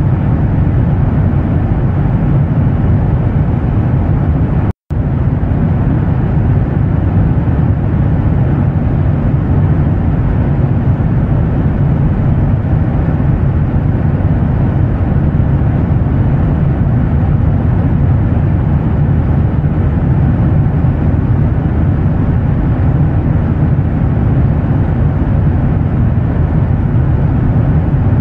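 Steady airliner jet-engine drone, an even low rumble and hiss heaviest in the bass. It cuts out for an instant about five seconds in.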